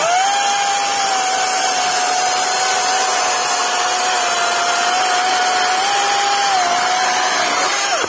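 DeWalt cordless chainsaw with a 16-inch (40 cm) bar spinning up and cutting through a log. Its electric motor gives a steady whine, and the chain rasps through the wood. The pitch sags a little under load, and the saw cuts off abruptly near the end.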